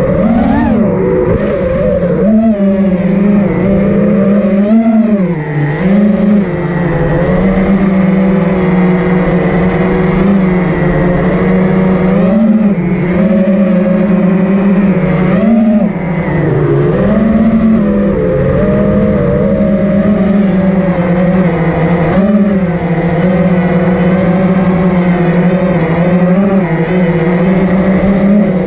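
Armattan Rooster FPV racing quadcopter's brushless motors and propellers whining, heard from the GoPro on board. The pitch dips and climbs again every few seconds as the throttle changes.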